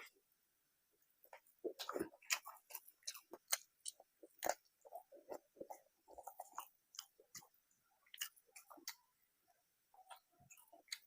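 Close-miked chewing of rice and curry: rapid wet, smacking mouth sounds and small clicks, starting about a second in.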